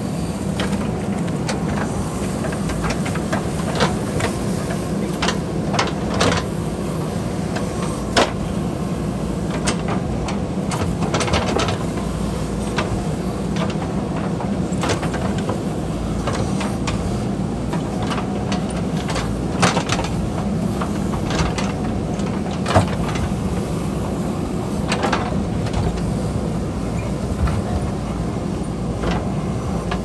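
JCB backhoe loader's diesel engine running steadily under load as its rear bucket digs into hillside soil and rock, with scattered sharp knocks and clatters of the bucket striking stones.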